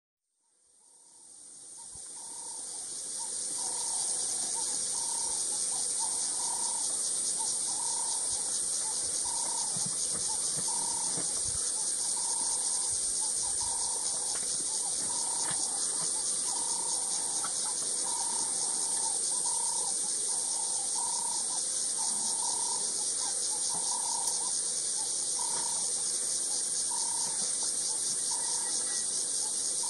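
A steady, high-pitched chorus of shrilling insects, fading in over the first few seconds. Underneath it, a short lower call repeats about once a second.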